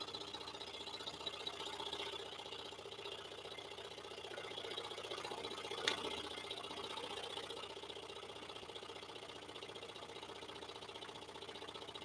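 Axminster Trade EX-16 scroll saw running, its blade cutting through a small piece of hardwood: a faint, steady mechanical hum, with one sharp click about six seconds in.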